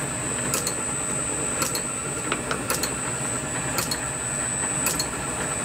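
Small metal lathe running steadily with a high whine, a light click repeating about once a second.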